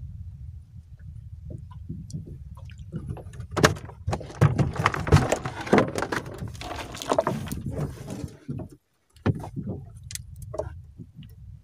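Knocking and clattering of gear being handled in a small fishing boat over a steady low rumble. The clatter is loudest and densest from about three and a half to eight seconds in.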